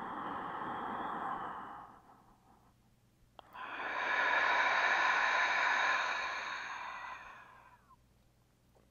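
A woman's deep cleansing breath: a long audible inhale that ends about two seconds in, then, after a short pause, a longer, louder exhale that slowly fades away.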